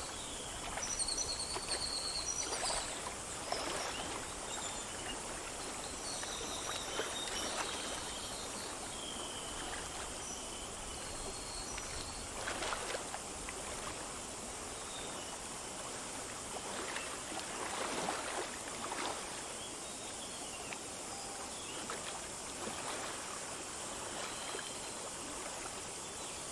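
Small forest stream flowing over stones in a steady rush, with louder gurgles now and then. Birds chirp briefly, mostly in the first half.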